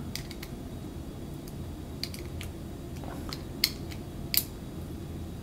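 Screws being tightened by hand with a screwdriver into a 3D-printed plastic part: scattered light clicks and taps, the two sharpest about three and a half and four and a half seconds in, over a low steady hum.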